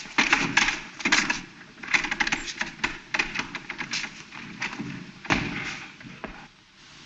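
A rapid, irregular clatter of knocks and thumps: slapstick commotion of hurried footsteps and people bumping into things. There is a heavier thump about five seconds in, and the noise dies down near the end.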